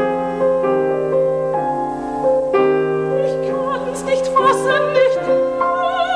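Classical piano playing slow held chords, joined about three seconds in by a singer with a strong vibrato.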